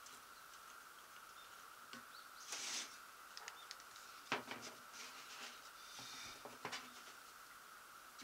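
Faint clicks and scraping of a small engine's recoil starter being taken apart by hand, as the plastic rope reel and its coiled recoil spring are lifted out of the housing and handled. There is a short scrape about two and a half seconds in and sharp clicks around four and six and a half seconds.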